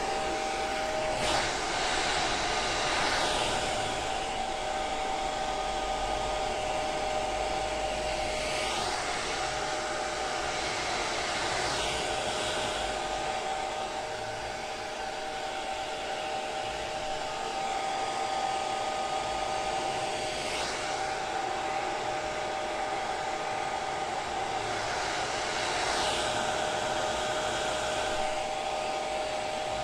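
Handheld hair dryer running steadily, a rush of air over a steady motor whine, with the air swelling briefly every few seconds.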